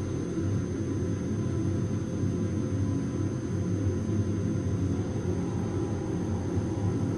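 Steady low rumble of the passenger ship M/S Koli III's machinery, heard below decks in its galley.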